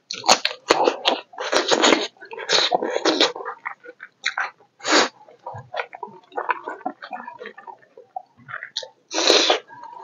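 Close-miked eating sounds: a man chewing a mouthful of rice and smoked pork, with wet smacking and sharp, breathy sucking sounds in short bursts, densest in the first three seconds and again about halfway and near the end.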